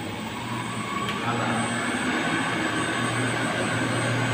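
Steady electric motor hum with an even rushing noise, growing louder about a second in.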